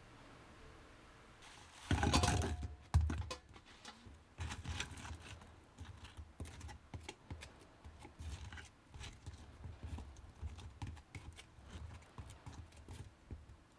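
Irregular series of light taps, clicks and knocks, louder and denser for about a second near the start.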